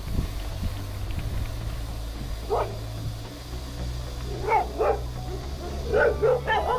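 Dogs barking: a single bark about two and a half seconds in, two more a couple of seconds later, then a quick run of barks near the end.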